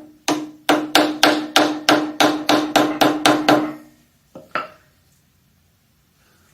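Hammer blows on a stuck part of an Oldsmobile 303 engine being torn down: about a dozen quick, evenly spaced strikes, a little over three a second, each with a ringing tone, then two lighter knocks.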